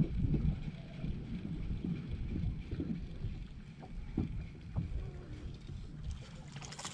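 Small waves lapping unevenly against the hull of a fishing boat, a low irregular sloshing with some wind buffeting mixed in.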